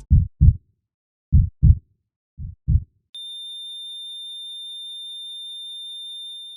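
Heartbeat sound effect: three low double thumps, lub-dub, about a second apart. About three seconds in, a steady high-pitched beep tone starts and holds, like a heart monitor's flatline.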